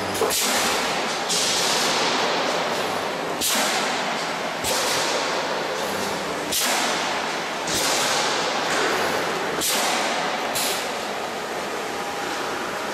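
Radiator panel end seam welding machine at work: a string of hissing bursts, about one every one to two seconds, each cutting in sharply and fading away.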